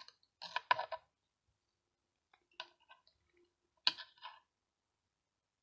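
Fingers twisting and tightening fishing line close to the microphone: soft clicks and rustles in three short clusters, about half a second in, around two and a half seconds and near four seconds.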